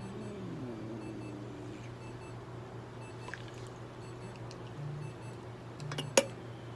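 Spoon stirring a wet food slurry in a stainless steel bowl, with a sharp clink of the spoon against the bowl about six seconds in, over a steady low electrical hum.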